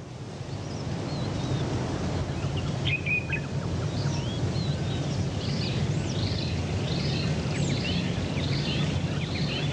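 Outdoor wildlife ambience: a steady low rumbling noise with birds chirping over it, a brief cluster of calls about three seconds in, then a run of repeated short chirps about two a second.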